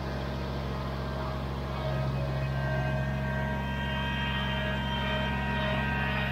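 Kubota BX23S compact tractor's three-cylinder diesel running steadily at low speed while the tractor creeps forward with the boom sprayer on; the engine note gets a little louder about two seconds in.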